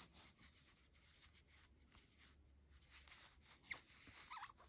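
Faint rubbing of a crochet hook drawing cotton yarn through stitches, with two short, faint squeaks near the end.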